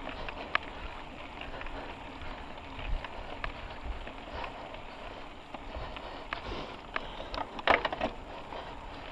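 Mountain bike riding on a dirt trail: tyres crunching over the ground, with rattles and scattered knocks from the bike and a short cluster of harder knocks near the end.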